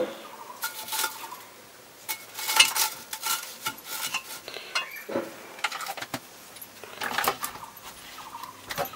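Metal pots and kitchen utensils clinking and knocking as a small pot is handled on a clay stove, in scattered short clinks, some ringing briefly.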